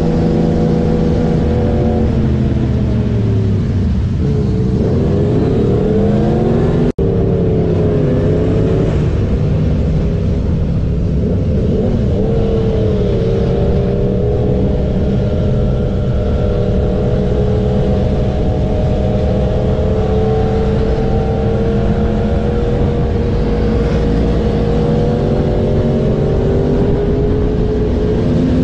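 Motorcycle engine heard from on board while riding, over wind rush. The engine note falls and then climbs again a few seconds in as the throttle is eased off and reopened, cuts out for an instant about seven seconds in, and then holds a fairly steady cruising note with small rises.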